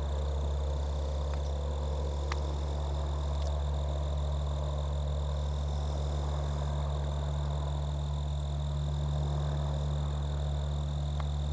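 Airplane engine drone, a steady low hum that does not change, with a few faint clicks.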